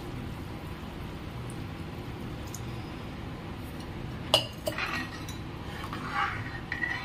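Water poured into a kadhai of thick masala gravy, then a metal ladle clinking and scraping against the metal kadhai as the gravy is stirred, with the sharpest clink about four seconds in.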